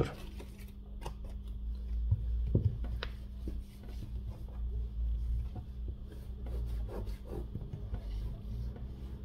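A cleaning cloth rubbing over the glass back cover of a Samsung Galaxy A54 phone in soft, irregular wiping strokes.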